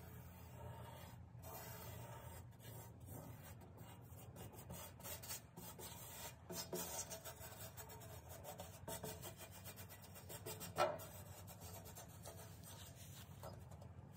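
Fingers pressing and pushing coarse powder along a steel plate: a faint rubbing and scraping with many small ticks, and one sharper tick about three-quarters of the way through.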